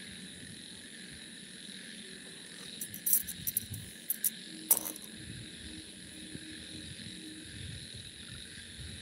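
Steady high chorus of crickets chirping, with a few sharp clicks between about three and five seconds in.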